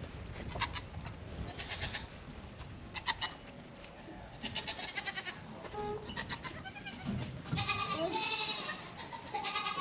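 Nigerian Dwarf goats bleating repeatedly in short, quavering calls, with a longer, louder bleat about eight seconds in.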